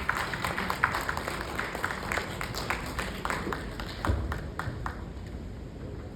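A small audience clapping, with separate claps audible, thinning out and dying away near the end.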